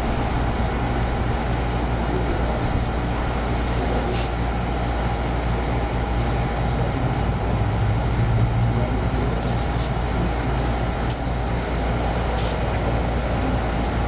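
Steady background hum and hiss of machinery, even in level throughout, with a few faint clicks of small parts being handled.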